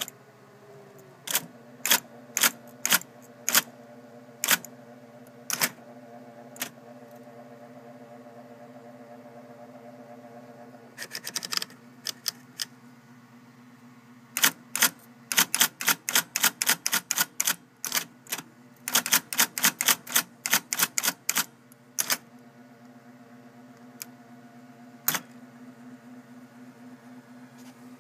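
IBM Selectric II electric typewriter typing, its motor humming steadily under the sharp clack of each stroke. Single strokes come about a second apart at first; from about halfway the keys go in quick runs, then a few lone strokes near the end.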